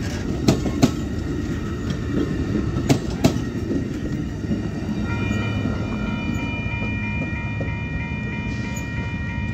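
Passenger train passing at speed with a steady rumble, its wheels clicking in pairs over rail joints. About five seconds in, an electronic grade-crossing warning bell starts ringing steadily over the train's rumble.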